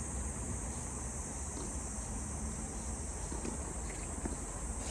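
Steady high-pitched insect buzzing, with a low rumble of wind on the microphone underneath.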